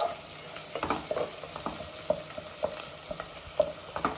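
Chopped onions and ginger-garlic paste sizzling in hot oil in a metal pot while a wooden spatula stirs and scrapes them. A few sharper knocks of the spatula against the pot come about two and three and a half seconds in.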